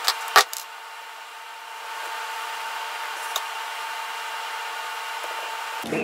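Hand tools and wire being handled on a hard floor: two sharp clacks in the first half-second and a faint click a little past the middle, over a steady background hum.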